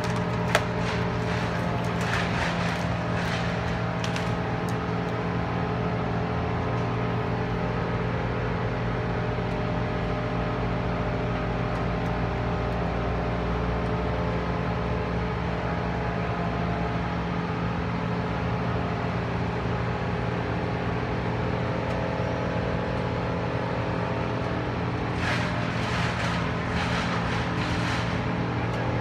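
Crane engine running steadily at a constant pitch while it lifts a cut tree section. Two spells of crackling noise come through it, one soon after the start and one near the end.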